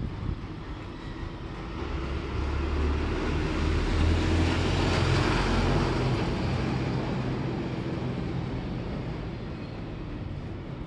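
Diesel engine of a white Nissan light box truck running close by, with a low hum and street noise that swell to their loudest about four to five seconds in and then fade.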